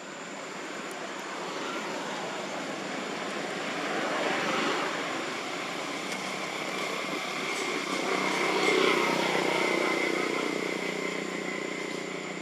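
A distant engine swelling and fading, loudest about nine seconds in, with a steady high whine through the middle.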